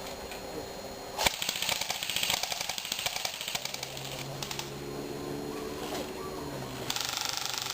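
Airsoft guns firing full-auto: a long burst of rapid clicking clatter starts about a second in, then after a pause a second burst begins near the end.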